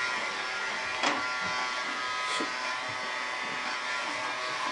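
Battery-powered toy upright vacuum cleaner running, its small motor giving a steady buzzing whine as it is pushed over carpet. A light knock sounds about a second in.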